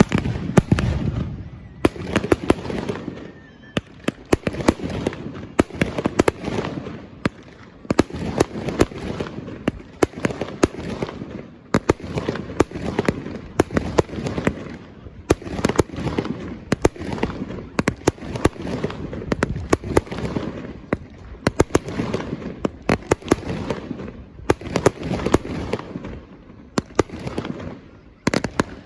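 Public fireworks display: a continuous barrage of shell bursts and sharp crackling reports, several a second, with deeper bangs among them.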